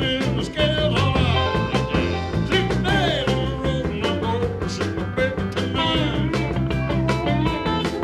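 Background music: an upbeat song with a steady beat, bass and guitar-like notes and a wavering lead line, in a ska or swing style.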